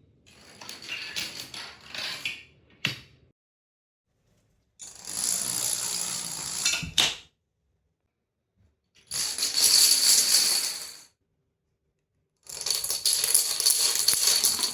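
H5 Domino Creations plastic dominoes toppling in a chain, a fast run of clacks lasting about two seconds, four times over with pauses between. The last run is the loudest.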